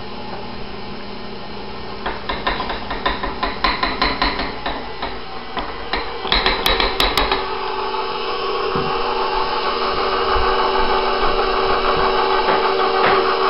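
Stand mixer running with a steady motor hum while its beater turns through flour and batter in a steel bowl. From about two to seven seconds in there is a rapid run of clattering knocks, and the mixer gets louder from about eight seconds.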